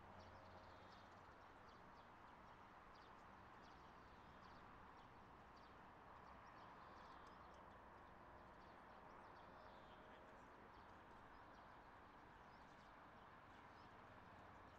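Near silence: faint bird chirps scattered throughout over a steady, low background hum.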